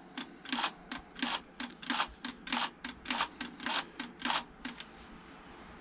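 A quick, even run of short clicks, about three a second, with every other one a little louder, stopping shortly before the end.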